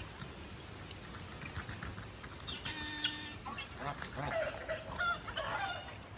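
Geese calling: one held honk about three seconds in, then a run of shorter honks with bending pitch.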